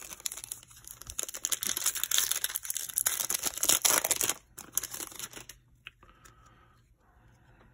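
Foil trading-card pack wrapper crinkling and tearing as it is ripped open, for about four and a half seconds, then fainter rustling as the stack of cards is slid out.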